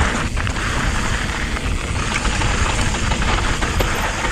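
Mountain bike descending a loose, rough dirt trail at speed: tyres rolling and skittering over gravel and dirt, a steady rough noise with a strong low rumble and a few sharp clicks from the bike.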